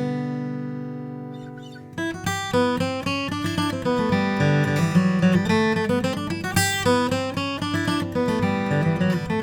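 Martin HD28 acoustic guitar with a Sitka spruce top and Indian rosewood back and sides being played. A chord rings and fades for about two seconds, then strummed and picked chords resume, with a climbing bass run partway through.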